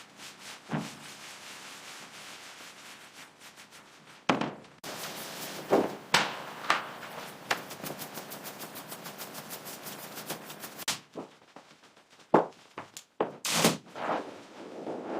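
Renovation work noises: a steady rubbing scrape, then fast rhythmic scrubbing or sanding strokes at about five a second for several seconds. After that come a few separate sharp knocks and thuds.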